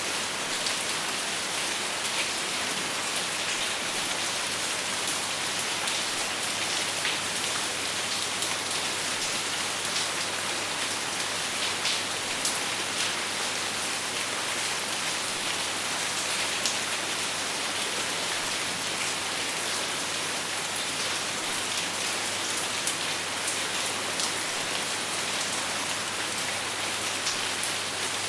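Steady rain falling, an even hiss with scattered drops ticking on a surface, with no thunder.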